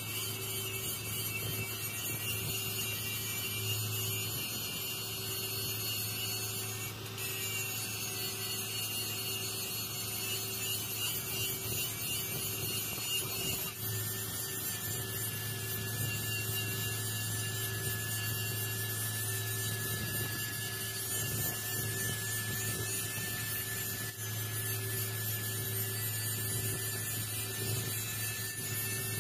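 TIG (argon) welding arc burning steadily on a steel pipe joint: a continuous electric hum with a faint high whine over it.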